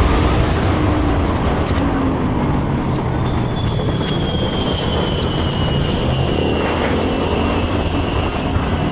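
Motorcycle running on the road: a steady low rumble under an even rushing noise, with a faint thin whine that slowly falls in pitch from about three seconds in.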